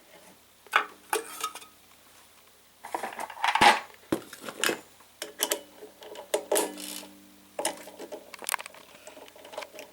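Metal clinks and knocks from handling the aluminum tube and the mini lathe's slide as they are backed out. The loudest cluster comes about three and a half seconds in, and a few knocks ring on briefly.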